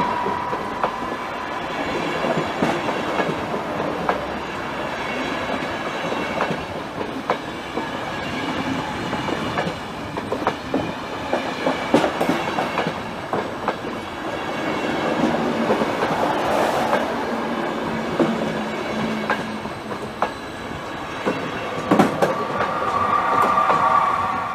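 A train passing close by: a steady rumble of wheels on rails, with many sharp clicks as the wheels run over rail joints. A steady whining tone comes in near the end.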